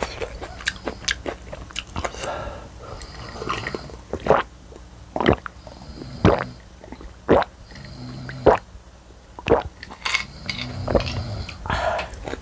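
Close-miked gulping swallows of a person drinking from a glass mug, about one a second, with small wet mouth clicks between them.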